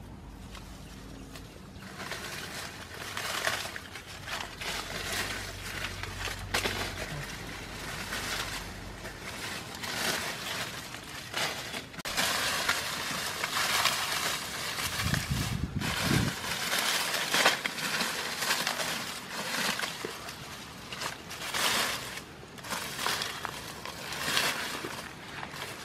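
Dry banana leaves crackling and rustling, again and again, as they are pulled off a pile and tossed aside, with a dull low thump about fifteen seconds in.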